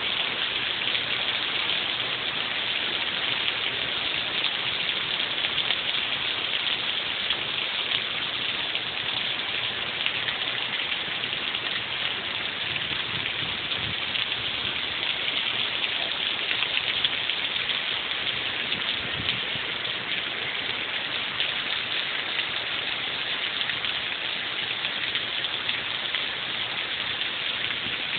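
Heavy rain pouring down onto an asphalt parking lot, a steady, even hiss of falling and splashing water.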